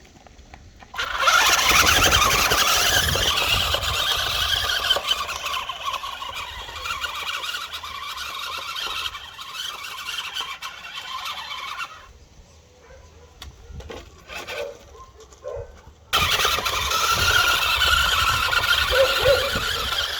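Electric RC car on a Tamiya CC-01 chassis, its motor and gears whining high under throttle. The whine starts suddenly about a second in and cuts off sharply about halfway through. After a few seconds of quieter rattling it starts again suddenly.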